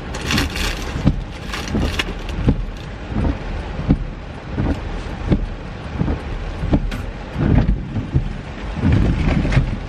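Rain falling hard on the roof of a minivan, heard from inside the cabin, with irregular knocks and rustling as someone shifts in the seat and handles a bag.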